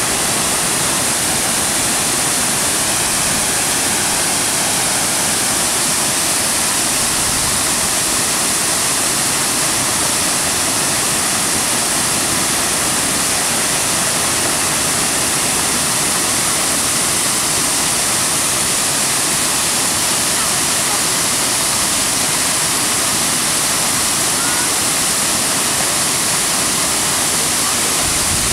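Waterfall pouring over a rock cliff edge into a gorge: a steady, loud rush of falling water.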